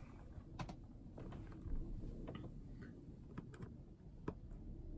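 Faint, irregular small clicks and taps as an LED spotlight fitting is handled and lined up against the ceiling, the sharpest one near the end.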